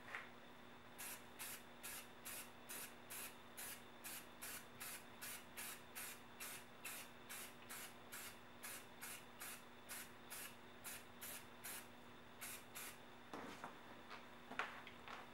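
Aerosol spray-paint can sprayed in a long run of short, evenly spaced bursts of hiss, about two a second. The bursts stop near the end, followed by a few knocks and rustles.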